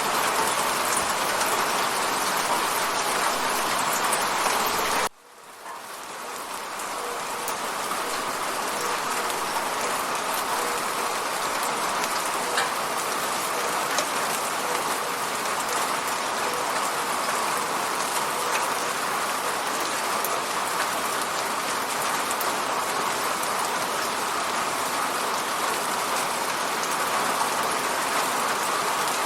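Steady rain falling on a window, an even dense patter. About five seconds in it cuts out abruptly, then fades back up over a few seconds to the same steady level.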